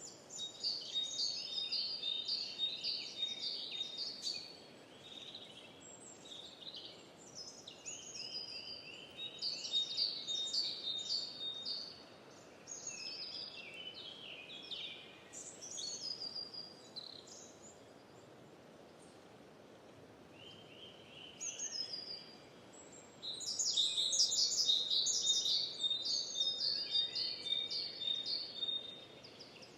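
Songbirds singing in bouts of quick, high repeated notes and chirps over a faint steady background hiss, with a lull in the middle and the loudest burst of song near the end.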